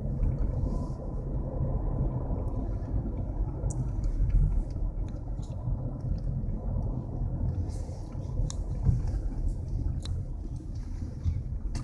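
Mercedes-Benz W210 E300 turbodiesel on the move: a low, steady rumble of the car running, with no clear whine standing out.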